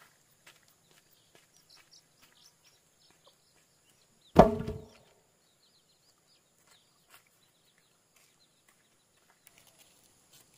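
A single heavy wooden thud about four seconds in, with a short ringing tail. Faint bird chirps and light clicks sound around it.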